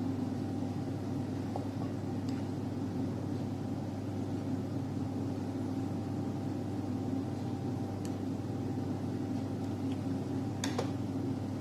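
A steady low machine hum, with a short sharp click about ten and a half seconds in.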